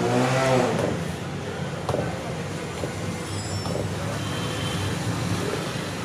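Busy street ambience: steady traffic noise from passing vehicles. A brief pitched sound rises and falls in the first second, and there is a sharp knock about two seconds in.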